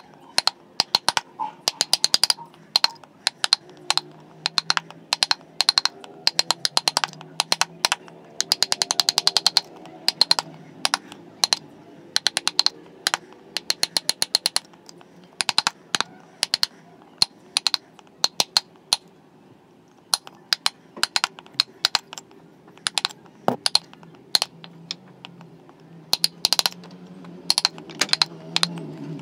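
Wooden mallet tapping the handle of a wood-carving chisel as it cuts into a small carved wooden figure: runs of sharp, quick taps with short pauses between them.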